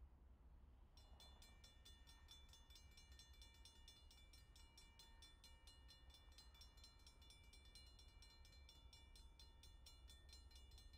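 Near silence: a faint steady low hum, joined about a second in by a faint, rapid, very regular high ticking with a thin steady high tone.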